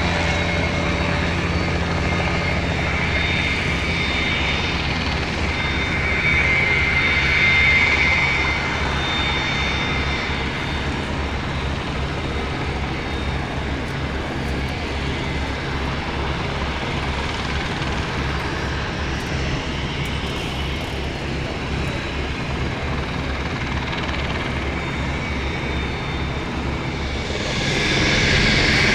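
Twin Pratt & Whitney Canada JT15D turbofan engines of a Cessna Citation II/SP running, a steady low rumble under a high whine. The sound swells briefly early on and grows louder again near the end.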